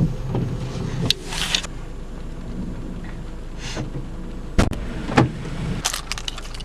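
Inside a moving car's cabin: a steady low drone of engine and road noise, with several knocks and rustles, two of them louder a little past the middle.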